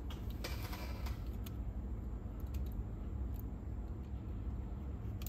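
Small scattered clicks and a short rustle about half a second in, from small parts and tools being handled while the counter belt is fitted on a cassette deck's mechanism. A steady low hum runs underneath.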